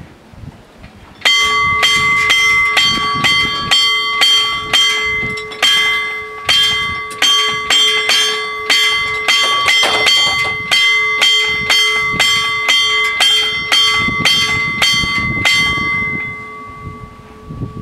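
Level crossing warning bell ringing with rapid repeated strikes, about two a second, each leaving a ringing tone; it starts about a second in and stops shortly before the end. It signals that the crossing is closing as the barriers come down.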